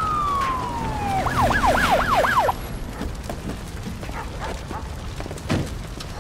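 Police car siren: a long falling tone, then a fast up-and-down yelp that cuts off suddenly about two and a half seconds in. A low rumble runs underneath, with a short thump near the end.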